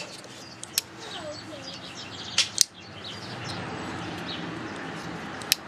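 Spyderco UKPK Lightweight folding knife, a slipjoint, its blade snapping open and shut with sharp clicks: one about a second in, a close pair midway, and another near the end. Faint bird chirps in the background.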